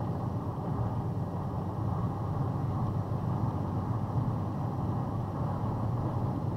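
Steady road and engine drone inside a vehicle's cabin while cruising on a highway at about 60 mph.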